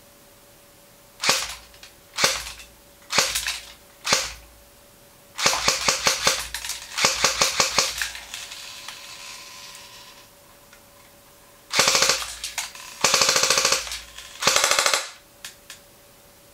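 Tokyo Marui Hi-Capa E electric airsoft pistol firing: four single shots about a second apart, then several rapid strings of shots, each a quick rattle of snaps.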